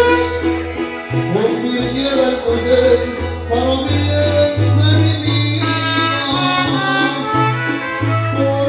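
Mariachi band playing live: deep guitarrón bass notes under guitar, with trumpet over the top.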